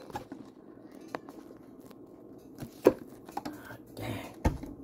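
Handling noise: scattered clicks and knocks from a phone camera being held and moved at close range, the loudest about three seconds in.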